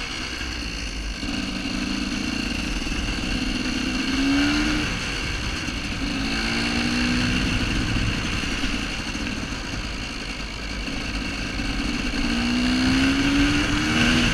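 Yamaha YZ250WR two-stroke single-cylinder dirt bike engine under way, its revs climbing and dropping back several times as it pulls through the gears.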